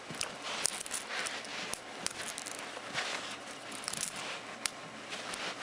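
Buckyballs neodymium magnet spheres clicking irregularly as a long strand of them is handled and straightened on carpet, with soft rustling of hands against the carpet.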